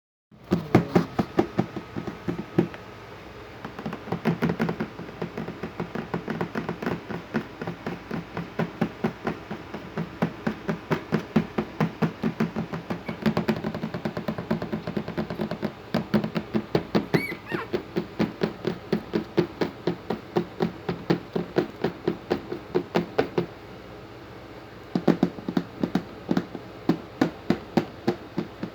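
Rapid, regular knocking, about four to five strokes a second, with short pauses, and one brief high squeak about two-thirds of the way through.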